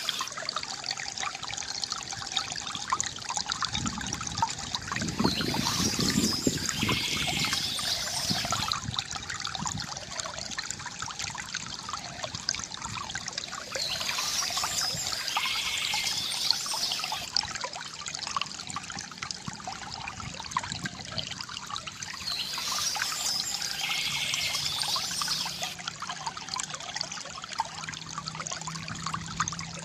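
A small stream trickling and gurgling steadily over stones, with short bursts of birdsong coming back about every eight or nine seconds.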